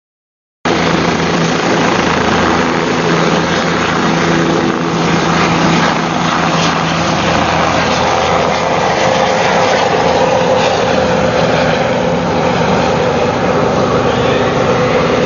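Aircraft engine noise, a loud steady drone with a few constant tones over a broad hiss, starting abruptly about half a second in.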